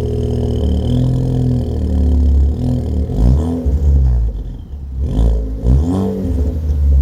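Ford Focus ST's turbocharged 2.0-litre four-cylinder, exhaust with a muffler delete, running on a cold start and revved twice: the note rises and falls about three seconds in and again near five and a half seconds.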